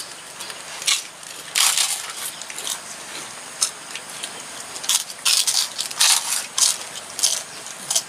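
Irregular crisp crunching and crackling as people eat food by hand off a banana leaf.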